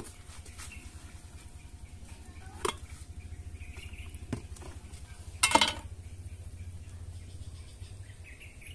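A metal garden trowel knocking and scraping against a metal bucket as potting soil is tipped out, with a few sharp knocks and the loudest clank about five and a half seconds in, over a steady low hum.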